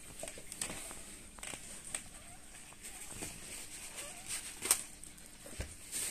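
Faint squeaks of newborn Lagotto Romagnolo puppies nursing, among scattered clicks and rustling in the whelping box; a sharp click about two-thirds of the way through and a duller knock a second later are the loudest sounds.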